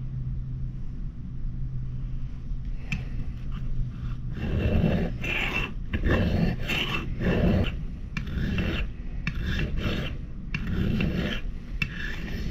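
Homemade steel fire striker being pushed hard across a rough sharpening stone, with a gritty rasp about every 0.7 seconds beginning about four seconds in, as the edge is roughed in.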